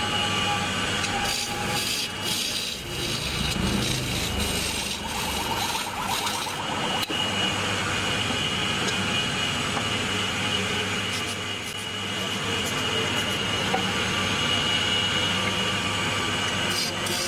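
Wood lathe running with a steady motor hum while a turning chisel cuts the spinning wood, giving a continuous rough scraping.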